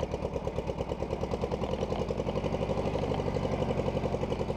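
Case VA tractor engine running at a steady, low speed with an even, rapid firing pulse, heard from the driver's seat as the tractor drives along.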